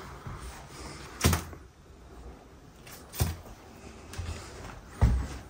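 Three short sharp thuds about two seconds apart, the last the loudest, over a low background hiss.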